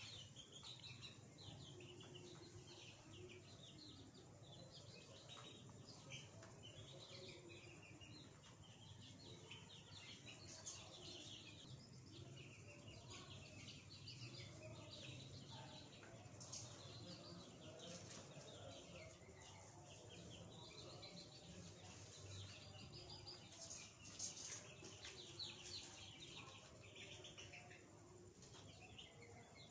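Faint, continual peeping of a flock of young chicks, with many short chirps overlapping throughout.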